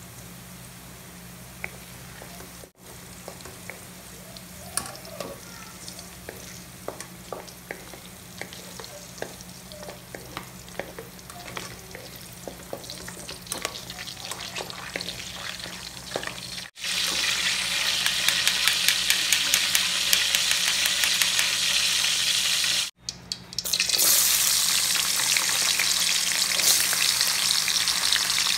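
Cubed carrots frying in oil in a wok, crackling with scattered pops and the scrape of a wooden spatula and wire-mesh strainer as they are scooped out. Partway through, after a brief break, a much louder, dense sizzle of cubed potatoes frying in hot oil, with a steady low hum underneath throughout.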